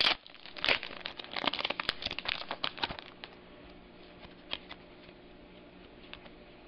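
Trading cards and their pack wrapper being handled: a dense crinkling and rustling for about three seconds, then only a few faint clicks.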